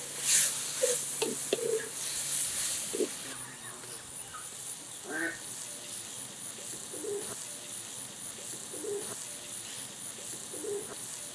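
Chopped onions and tomatoes sizzling in oil in a clay pot while a wooden spatula stirs and scrapes them, for about the first three seconds, then cutting off. After that a bird calls low at regular intervals, about every two seconds, over a faint thin high whine.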